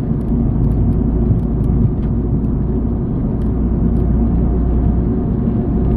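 Mazdaspeed 3 being driven, with a steady mix of engine and road rumble heard from inside the cabin.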